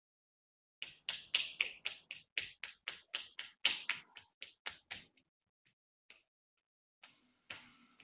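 Fingers tapping quickly on a person's head during a head massage: a fast, even run of sharp light taps, about four a second, that stops about five seconds in. A faint soft rustle follows near the end.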